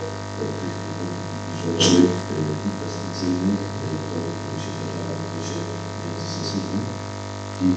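Steady electrical mains hum and buzz, under muffled, indistinct speech from a man talking into a microphone.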